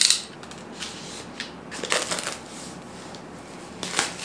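Utility knife cutting the plastic shrink-wrap on a smartphone box, and the wrap rustling as the box is handled, in a few short scratchy bursts.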